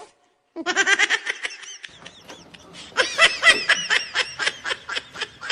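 A person laughing in high-pitched, rapid bursts, in two spells: one starting about half a second in and a louder one about halfway through.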